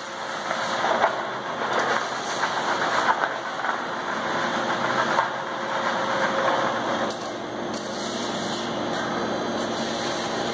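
Brokk remote-controlled demolition robot, an electric machine with a hydraulic drive, running under load as it crawls on its steel tracks over a concrete ledge, with irregular knocking and clattering. About seven seconds in the clatter dies down and a steadier machine hum is left.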